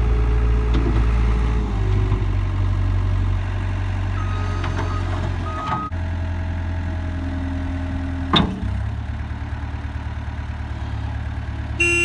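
Diesel engine of a 2004 Cat 257 rubber-track skid steer loader running steadily as the machine is driven, its note shifting a few times, with a single sharp knock about two-thirds of the way in.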